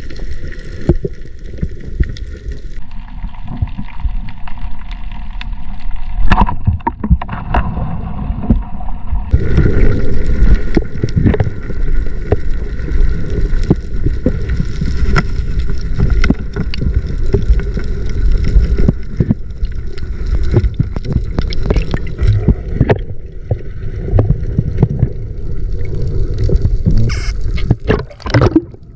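Water rumbling and gurgling, with a dense low rumble and many small crackles.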